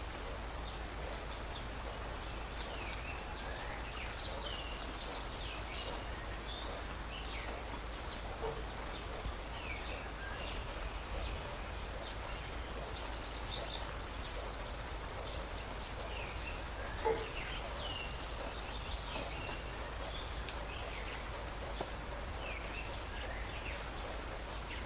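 Outdoor ambience with a steady hiss and birds calling: scattered short chirps and a fast high trill heard three times.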